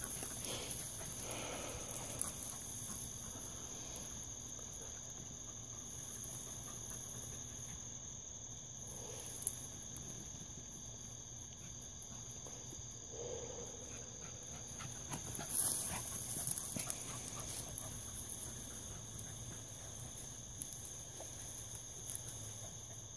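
Faint, occasional yelps from hunting dogs working a rabbit's trail, over a steady high-pitched insect chorus, with a short spell of brush rustling about two-thirds of the way through.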